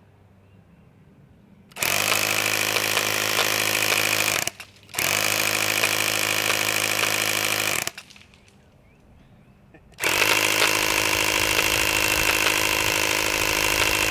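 Battery-powered airsoft microgun firing three long full-auto bursts, the first about two seconds in and the last running on past the end, each a steady high-rate buzz.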